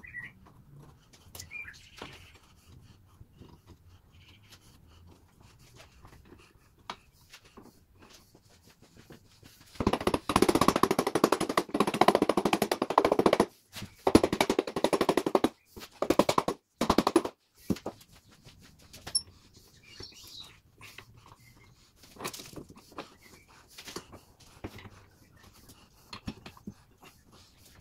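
Rubber mallet rapidly striking the tops of end-grain wood blocks held in pipe clamps, tapping the glued-up pieces level, in a dense run of blows starting about ten seconds in and lasting about eight seconds. Scattered light knocks before and after.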